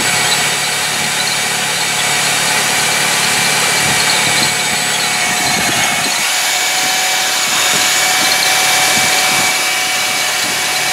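Large corded electric drill running steadily under load, its bit boring through a steel flat bar: a continuous motor whine over the grinding of the bit cutting metal.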